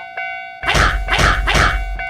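Japanese level-crossing warning bell dinging steadily. Just over half a second in, a loud, deep rumbling noise pulsing three times comes in over it.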